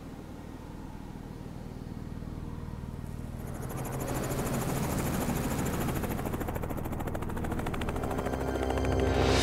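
Small helicopter's rotor blades beating in a rapid, even chop that fades in about a third of the way through and grows louder.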